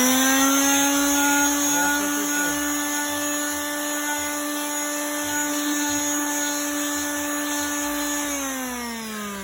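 Handheld electric power tool motor spinning up, running at a steady speed for about eight seconds, then winding down with falling pitch near the end.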